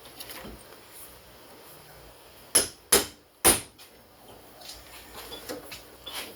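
Three sharp hammer blows on a chisel, driven into a scored bearing race on a chainsaw crankshaft to crack it off; the blows come a little under a second apart, about halfway through, with faint clicks and taps before and after.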